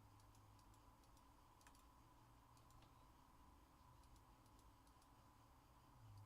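Near silence: faint scattered clicks, several in quick clusters, over a low steady electrical hum.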